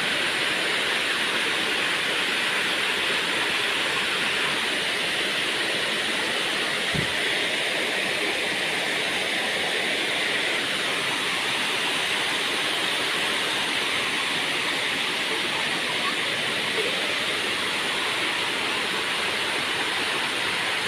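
Waterfall rushing, a steady, even hiss of falling water that does not change.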